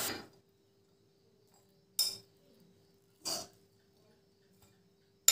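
Two short metallic clinks of kitchen cookware or utensils, a little over a second apart, against a faint steady hum; a frying sizzle breaks off right at the start.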